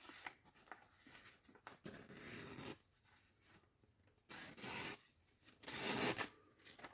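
Sharpened hunting-knife edge slicing through a sheet of paper in a few short, hissing strokes: the paper test of the edge's keenness.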